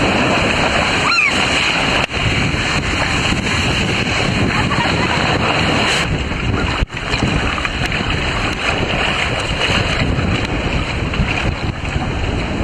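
Steady rush of water on a water coaster slide, with wind buffeting the microphone.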